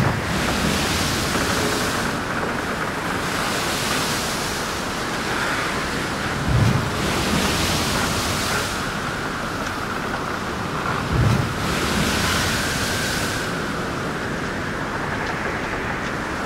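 Storm sound: wind and surf washing in swells every few seconds over a steady rush. A low thud comes at the start and twice more, about five seconds apart.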